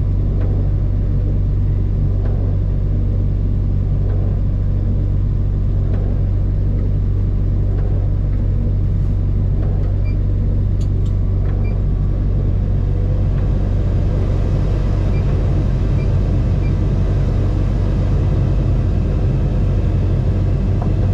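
Bulldozer's diesel engine idling steadily while it warms up, heard from inside the cab.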